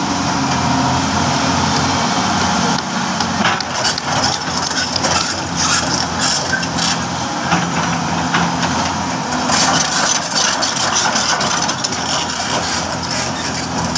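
Tracked hydraulic excavator's diesel engine running steadily as the machine moves on its crawler tracks, with a few short rattles along the way.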